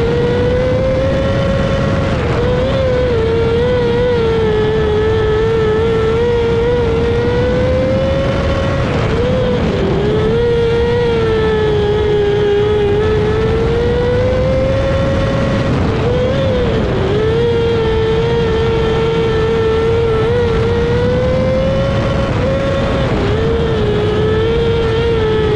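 Micro sprint car's 600cc motorcycle engine running at high revs, heard on board during a dirt-track race. The engine pitch climbs slowly, then dips sharply and recovers about every six to seven seconds, three times in all, over a steady rushing noise.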